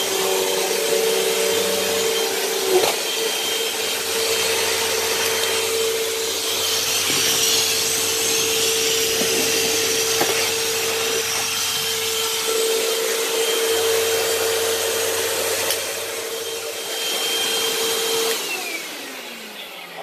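Hoover Elite Rewind bagless upright vacuum cleaner running steadily with its motor whine, then switched off near the end, its motor winding down with a falling whine.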